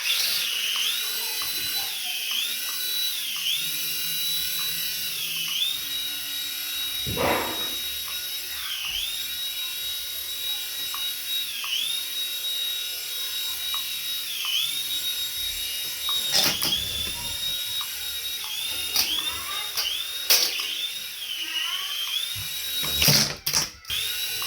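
High-pitched whine of a toy's small electric motor, dipping briefly in pitch and coming back up about every second and a half, with a few knocks now and then.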